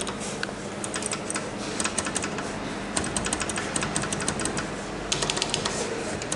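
Bursts of rapid, light clicking and ticking, several clicks a second, coming in clusters, over a steady background hum.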